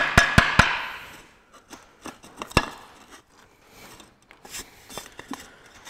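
Ratchet wrench clicking in quick strokes as the last bolt of a tractor diesel's oil filter housing is undone; the clicking stops under a second in. Then scattered light knocks and scraping as the cast housing is worked free and lifted off the engine block.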